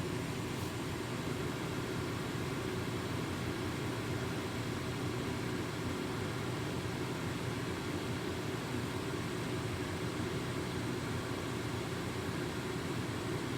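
Atwood RV propane furnace running steadily, its blower fan giving an even whir. This is the second of three on-off cycles that end with the furnace shutting itself off, a fault the owner puts down to a failing control board.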